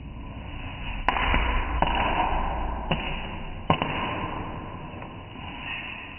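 Popcorn kernels popping in an open stainless steel pan: four sharp pops in the first four seconds, about a second apart, with a hiss between them that fades toward the end.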